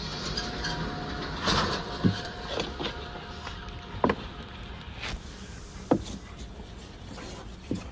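A dog rolling and wriggling on its back on wooden decking: scuffing of fur and paws on the boards, with four short thumps about two seconds apart, over a steady background hum.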